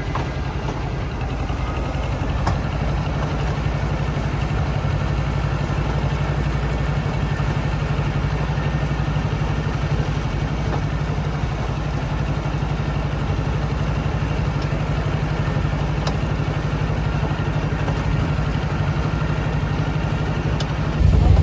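Tractor engine running steadily at an even speed, a constant low rumble.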